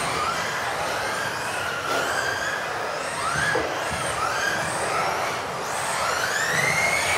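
Several electric off-road RC buggies racing, their motors whining in overlapping pitch sweeps that rise as they accelerate and drop off as they brake, over a steady hiss.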